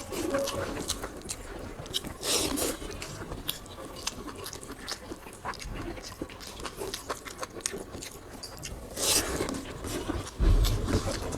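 People eating beef curry and rice fast by hand: chewing, with scattered small clicks and rustles of food and plate. There is a dull thump near the end.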